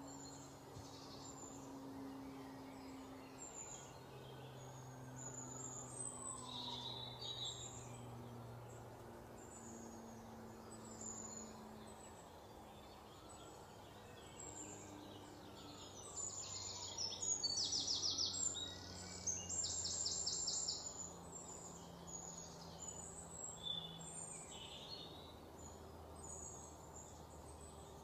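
Birds chirping and calling, with loud rapid trills about two-thirds of the way through and a faint low hum underneath.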